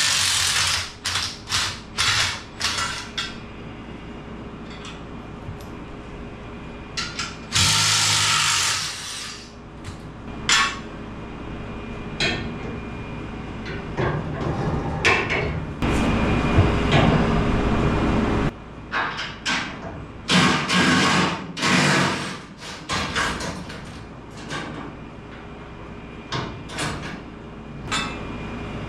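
Cordless drill running in several short bursts of a second or more, amid many sharp metal clinks and knocks of steel bumper brackets and hardware being handled.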